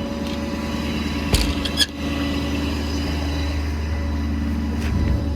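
Ford F550's 6.7 Power Stroke V8 turbo-diesel idling steadily, with a couple of brief clicks about a second and a half in.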